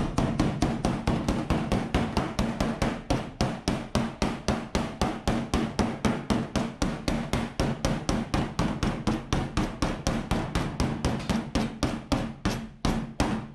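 An old file used as a body slapper, striking a bare steel car bonnet in rapid, even blows of about four a second. It is knocking high spots in the panel back down.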